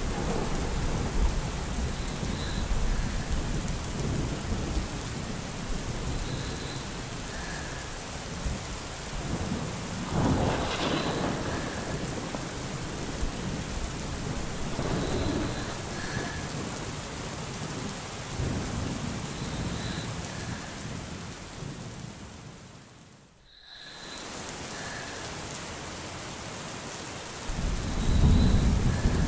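Steady rain with low rolls of thunder, the strongest about ten seconds in and near the end. A little past two-thirds through, the sound briefly fades almost out and comes back in.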